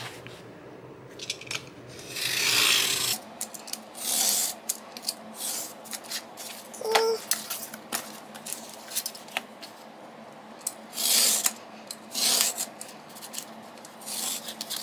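Snap-off utility knife drawn through corrugated cardboard along a steel ruler in several separate strokes, each a rasping scrape, with clicks and knocks from the cardboard and ruler being handled between strokes.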